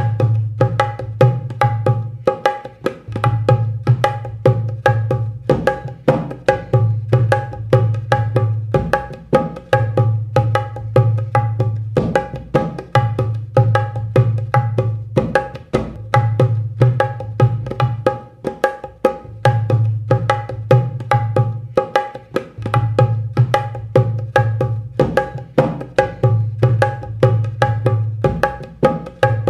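Dholak playing a Rajasthani ghoomar rhythm pattern as a looped track: quick, even drum strokes with a ringing treble head. Deep bass strokes swell and drop away in a cycle that repeats about every three seconds.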